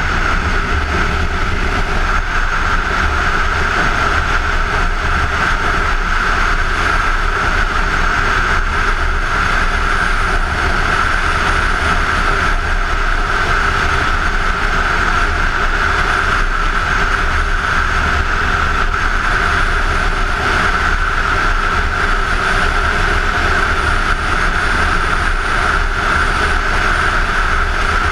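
Kawasaki Ninja 250 parallel-twin engine running at a steady cruise under the rush of wind over a helmet-mounted camera, with no revving or gear changes.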